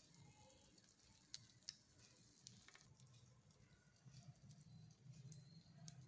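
Near silence: faint room tone with a low hum and a few faint, light clicks.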